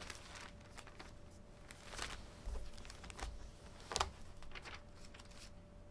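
Thin Bible pages being leafed through by hand: faint, scattered paper rustles and flicks, the sharpest about four seconds in.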